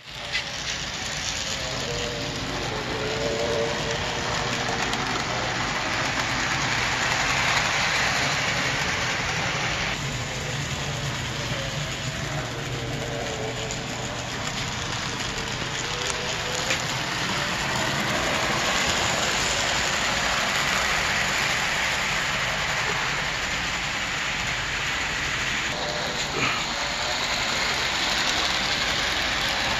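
Brass OO gauge Pennsylvania Railroad E6 model steam locomotive running on track, pulling passenger cars: a steady rolling rattle of wheels on rails with a faint electric-motor whine that wavers in pitch.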